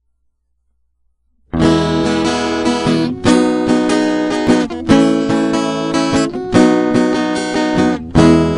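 Acoustic guitar strumming chords in a steady rhythm, starting suddenly about a second and a half in after silence: the opening of a song.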